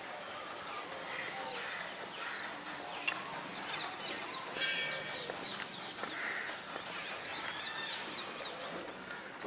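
Many wild birds chirping and calling together: overlapping short chirps and quick falling whistled notes, with one brief, louder call about halfway through.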